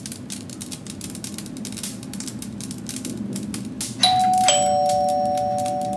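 Two-note ding-dong doorbell chime about four seconds in: a higher tone, then a lower one, ringing on and slowly fading over faint room tone.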